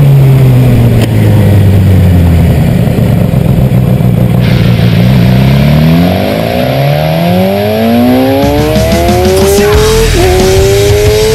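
Suzuki GSX-R600 inline-four engine heard onboard: revs falling away as the bike slows for a hairpin, then rising steadily under acceleration, with a sudden drop in pitch at an upshift near the end before climbing again.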